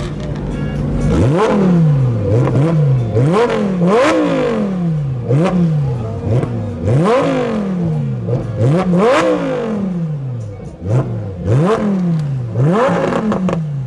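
Supercar engine being revved again and again while stationary or barely moving, about once a second. Each rev climbs sharply in pitch and then falls away slowly.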